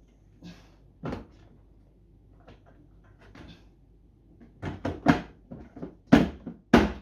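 Plastic case parts of an AVA P70/P80 pressure washer knocking and clacking as they are handled and pushed into place. There is one knock about a second in, then a cluster of louder knocks in the last two and a half seconds.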